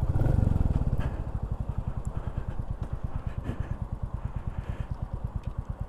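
Motorcycle engine running at low revs, a steady, rapid pulsing exhaust beat, picked up by a microphone inside the rider's helmet.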